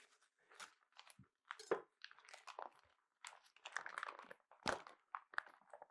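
Vacuum-sealed plastic packaging around a rack of raw pork ribs being slit with a knife and peeled off the meat: faint, irregular crackling and rustling, with a few sharper crackles.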